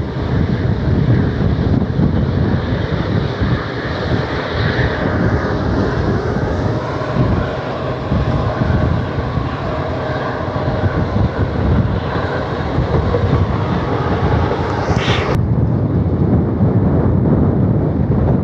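Express passenger train running fast along a curve, heard from an open coach doorway: a steady rumble of wheels on rails with wind rushing past. A brief sharp hiss comes about three-quarters of the way through, after which the noise sounds duller.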